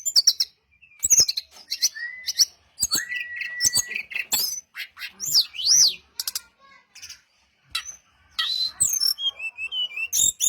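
Brown-chested jungle flycatcher singing: a varied run of clear whistled phrases, trills and notes that slur up and down, with one longer held whistle, and a quieter gap a little past the middle.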